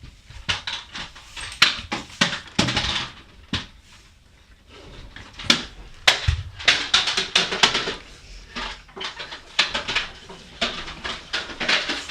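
Irregular clicking and clattering of hard toy train pieces being handled and knocked together, in quick runs with a short lull about four seconds in.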